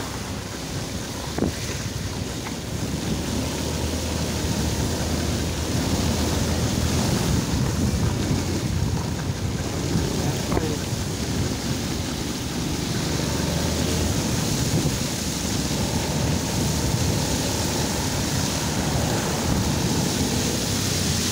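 Motorbike running steadily through shallow floodwater, its tyres swishing and spraying water, with a low engine hum under the noise of the water and wind on the microphone.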